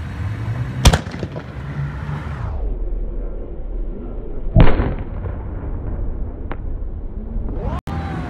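Fireworks going off: two loud bangs about three and a half seconds apart, the first about a second in, over a steady low rumble.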